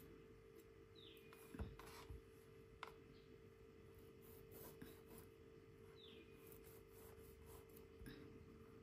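Near silence: faint room tone with a steady low hum, a few soft clicks, and two short falling chirps about five seconds apart.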